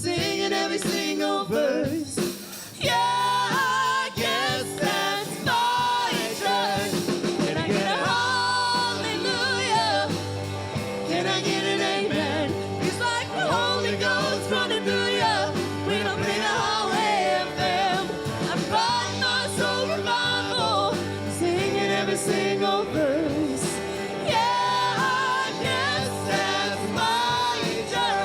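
Live band with a lead singer, sung vocal lines bending in pitch over steady bass and full band accompaniment, with a brief dip in loudness about two and a half seconds in.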